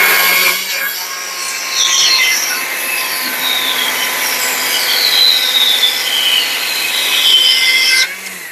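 Battery-powered Stihl chainsaw with a carving bar running at full speed and cutting into a block of wood, a steady motor whine with scratchy chain-on-wood cutting sounds over it. It stops near the end.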